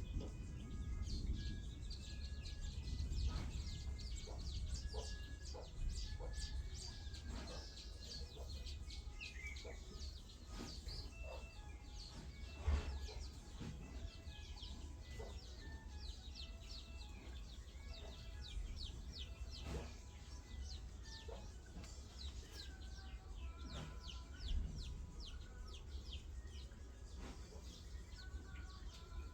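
Chickens clucking and small birds chirping in the background, in many short scattered calls and ticks over a steady low rumble.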